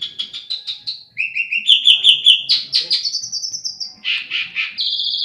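Pied starling (jalak suren) singing: quick runs of repeated whistled notes, each run at a different pitch, turning harsher and raspier near the end.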